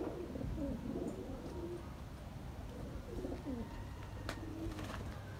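A flock of domestic pigeons cooing, with many low coos overlapping throughout. A single sharp click sounds about four seconds in.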